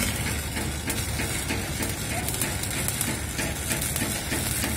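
Electric arc welding on a steel pipe: a steady crackling hiss with irregular sharp ticks over a low machine hum, with faint voices behind.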